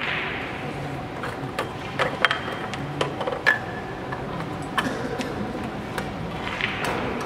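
Several sharp clicks of carom billiard balls striking one another and the cushions, the loudest a little over two seconds in, over the steady background noise of a large hall.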